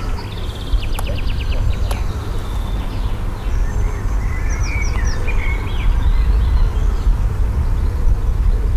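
Wind rumbling on the microphone, with birds singing: a rapid ticking trill near the start and scattered short chirps midway. Two sharp clicks come about a second apart early on.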